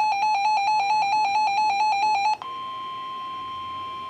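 Weather radio emergency alert tones: a rapid, warbling electronic beeping that cuts off about two and a half seconds in and gives way to a steady, single-pitch 1050 Hz warning alarm tone, which signals a warning broadcast.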